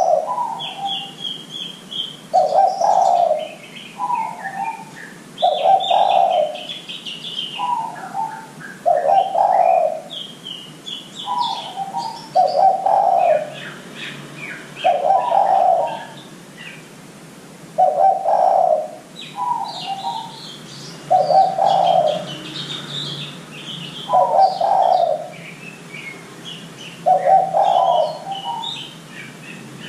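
Spotted dove (derkuku) cooing: a low coo of two parts, a longer note then a shorter, higher one, repeated about every three seconds. Small birds chirp and twitter higher up between the coos.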